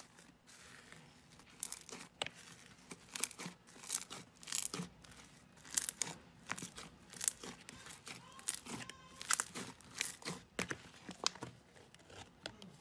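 Hand squishing and pressing slime, making sticky crackling and popping clicks in uneven clusters, several a second.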